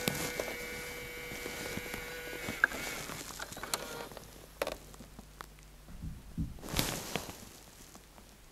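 Handling and clicking of an old handheld camcorder's buttons and controls. A steady whine lasts for the first couple of seconds, scattered clicks and knocks follow, and a short rustle comes near the end.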